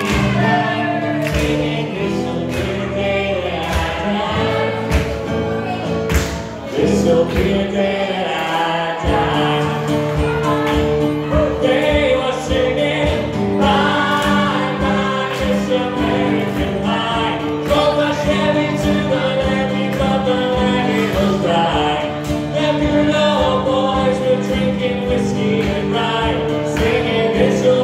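Loud song with group singing and a steady beat, accompanying a dance routine.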